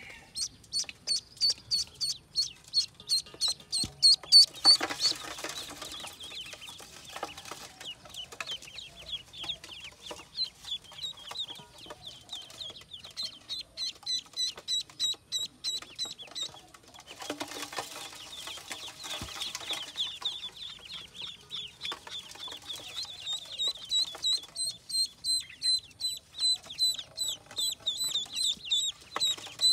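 Ducklings peeping insistently, a rapid string of short high peeps about four to five a second, many of them dropping slightly in pitch. Two brief rustles of handling are heard, about five seconds in and again just past the middle.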